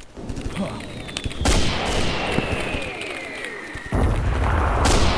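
Battle sounds: a sharp bang about a second and a half in, then a whistle falling steadily in pitch for over two seconds, ending in a deep, heavy boom about four seconds in, with another sharp bang near the end.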